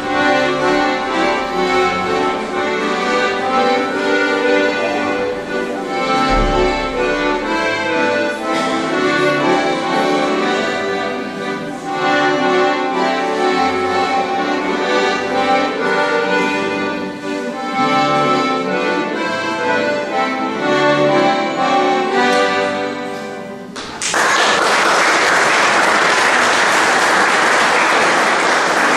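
Folk dance music playing, which stops suddenly about 24 seconds in and gives way to audience applause.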